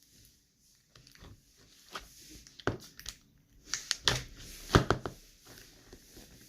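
Slime being squeezed and worked by hand, giving a few short, sharp pops and clicks at irregular moments, most of them bunched together around the middle.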